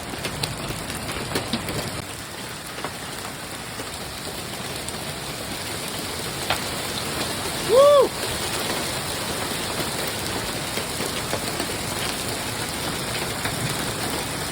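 Steady downpour of rain and hail, with scattered sharp ticks of hailstones striking. About halfway through, a short rising-and-falling pitched tone, the loudest sound.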